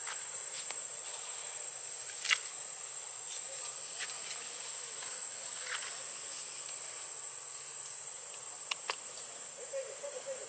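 Insects droning steadily in one high, even tone over a hiss of forest background. A few sharp clicks cut through: the loudest about two seconds in, two more close together near the end.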